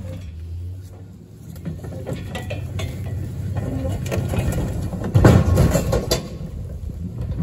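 Vehicle being moved on a steel car trailer and ramps: low rumbling with metal clanks and knocks, heaviest in a run of clanks about five to six seconds in.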